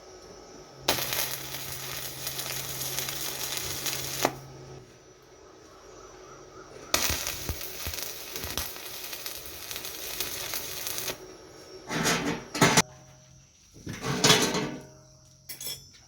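Angle grinder with a wire brush scouring rust off steel: a harsh hissing scrub with a steady motor hum beneath, for about three seconds from about a second in. It scrubs again for about four seconds from about seven seconds in, then makes a few short touches near the end.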